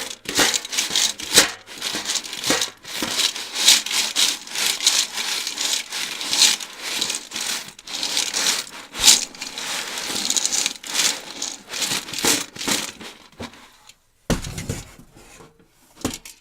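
Coins being flipped and handled: a dense run of quick clicks and clinks that thins out about thirteen seconds in. After a brief pause comes a short burst and one last small one.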